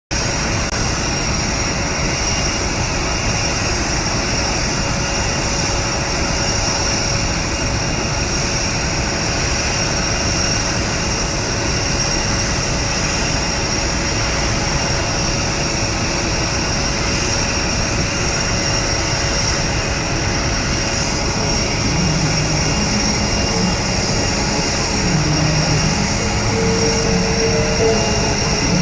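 Jet aircraft engine running steadily on the ground: a constant rush with a steady high whine.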